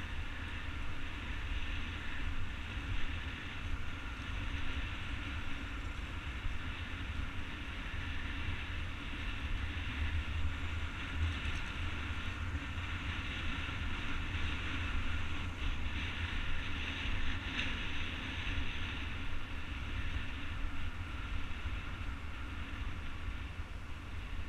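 Skate wheels rolling steadily over an asphalt path, a continuous rumble and hiss.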